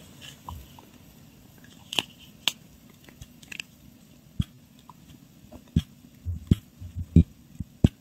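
Scattered small plastic clicks and taps as the nozzle of a plastic squeeze bottle knocks against a resin shaker mold while glitter is shaken in, coming more often in the second half.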